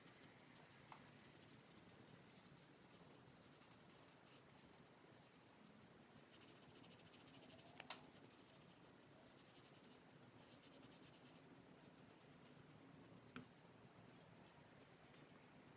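Near silence: faint rubbing of a makeup brush being swept over skin, with three soft clicks, the loudest about eight seconds in.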